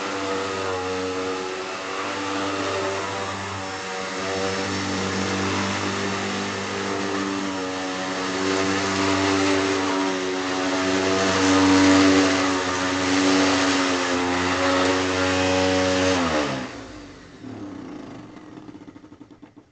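Hoover Deluxe Elite Rewind upright vacuum cleaner's motor running steadily, then switched off about sixteen seconds in, its pitch falling as it spins down, with a fast ticking near the end as it coasts to a stop.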